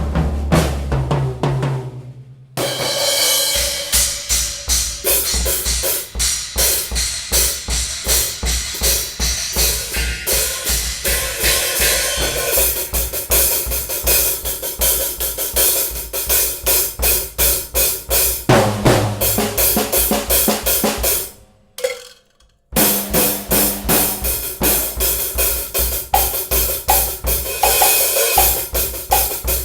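Drum kit played in a steady groove of kick drum, snare, hi-hat and cymbals, along with music that carries sustained low bass notes. The playing breaks off briefly about two seconds in and again about twenty-two seconds in, then starts again.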